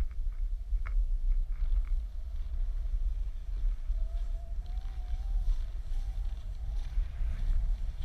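Wind buffeting the microphone of a camera held out on a selfie stick while skiing downhill: a steady low rumble, with a few faint clicks in the first two seconds.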